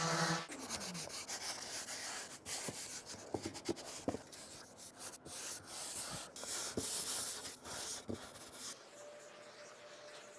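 Hand sanding an oak cabinet door with 220-grit paper in a sanding block: irregular back-and-forth rasping strokes, knocking back dried pore filler and scuffing the old finish. In the first second a random orbit sander's motor hum falls in pitch as it winds down, and near the end the sanding gives way to a faint steady hum.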